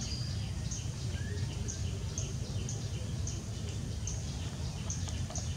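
Forest ambience: a high, thin chirp repeating about twice a second over a steady low rumble.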